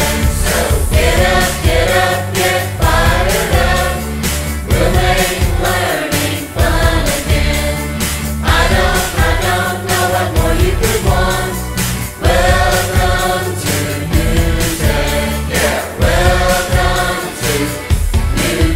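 Music: a song with sung vocals over a steady, heavy bass beat.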